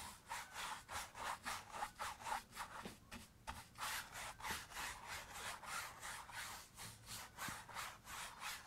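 A 2-inch paintbrush loaded with oil paint scrubbing back and forth across a canvas, a faint rubbing at about three strokes a second.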